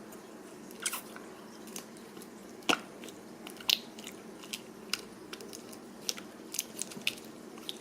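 Clumpy, tearing slime being squeezed and worked by hand, giving about a dozen small wet clicks and pops at irregular intervals.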